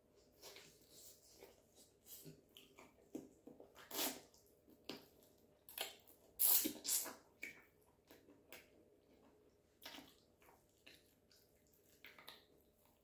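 Close-miked eating sounds of a person chewing chicken and wet stew eaten by hand: irregular wet smacks and clicks of the lips and mouth, loudest about six to seven seconds in.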